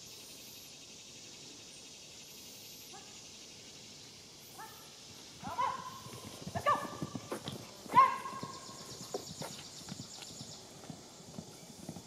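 Ponies galloping off, hooves thudding in quick succession from about halfway through, with several short calls among the hoofbeats. Before that, only a faint steady insect buzz.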